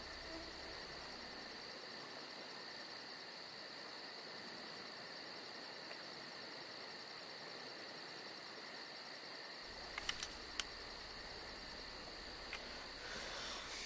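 Crickets chirping in a steady, evenly pulsing drone, with a few faint sharp clicks about ten seconds in.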